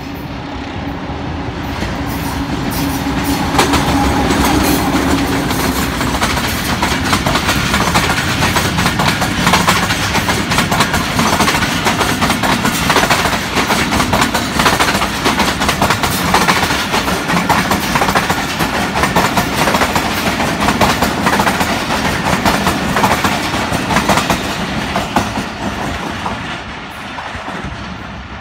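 Passenger train running through a station at speed without stopping. The locomotive leads with a steady low drone, then the coaches' wheels clatter over rail joints and points in a dense run of clicks. The noise builds to a loud peak and fades near the end as the train moves away.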